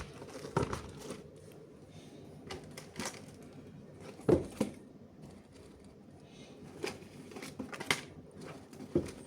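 Handling noise from running shoes and their packaging being turned over by hand: scattered light taps, clicks and rustles, the loudest knock about four seconds in.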